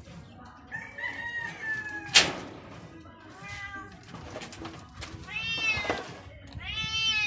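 Domestic cats meowing: a faint falling call about a second in, then two long meows near the end. A single sharp knock about two seconds in is the loudest sound.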